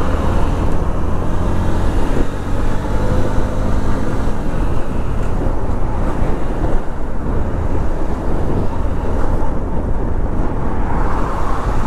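Honda SP125 motorcycle riding at road speed: its single-cylinder engine running under a heavy, steady rumble of wind and road noise on the microphone, with traffic around it.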